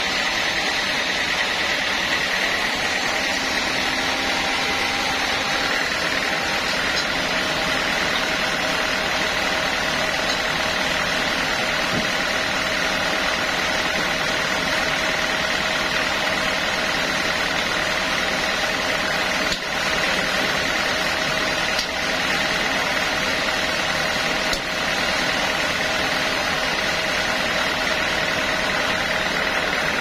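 A log band sawmill running steadily, its saw blade and drive giving an even, loud whine and hiss with a steady high tone. The level dips briefly three times in the second half.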